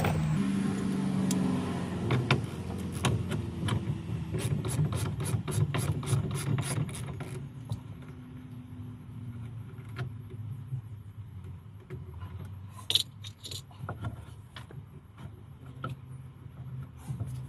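Metal hand tools clicking and clinking against the boat's steering helm hardware during disassembly, with a quick run of evenly spaced clicks through the first half and a few sharper knocks later.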